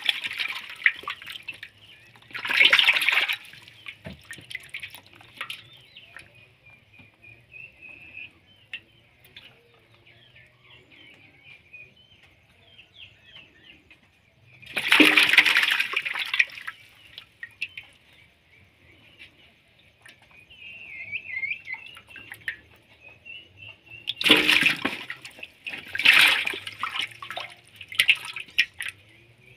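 Live catfish thrashing and splashing in a shallow basin of water as a hand reaches in among them, in bursts about three seconds in, midway, and twice near the end. Faint high chirping runs in the quiet stretches between the splashes.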